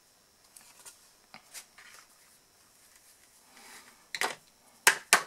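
Quiet handling of a paper card while black embossing powder is sprinkled over it from a small jar into a plastic powder tray, a faint soft hiss. Near the end comes a brief rustle and two sharp taps as the card and jar are handled.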